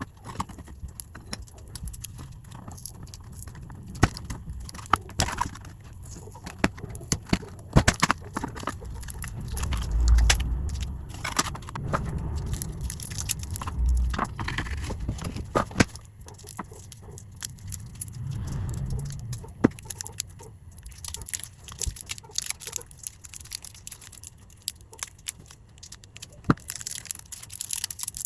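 Irregular clicks, taps and light scraping of small plastic and metal parts being handled at a workbench during battery replacement in a Ring video doorbell, with two dull thumps about ten and fourteen seconds in.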